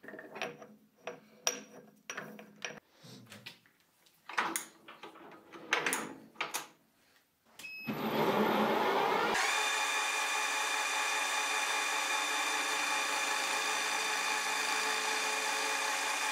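Metal clanks and clicks as an aluminium disc is fitted into a metal lathe's chuck, then the lathe is switched on near the middle, spins up, and runs steadily with a gear whine from its headstock and the polygon-turning attachment's drive.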